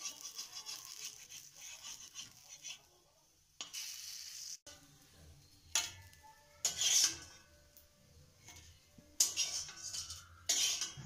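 A metal spatula scrapes and clinks against a metal pan and a steel bowl as small rice-batter pancakes are lifted out and dropped in, four or five sharp strokes in the second half. At the start there is a steady hiss from the pancakes cooking in the pan.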